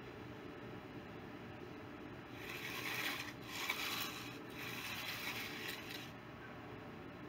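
A hand concrete-finishing tool scraping along the edge of a freshly poured concrete slab. There are several rasping strokes with short breaks, starting about two and a half seconds in and stopping about six seconds in.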